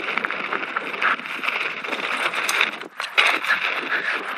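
Mountain bike rolling fast over a loose dirt and gravel trail: tyres crunching on grit with a continuous fine rattle and clatter from the bike. The noise briefly drops away about three seconds in, then resumes.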